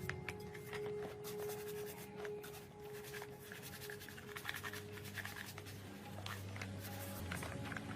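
Light scratching and rubbing with scattered small clicks, as of hands working on small parts, over a faint steady hum.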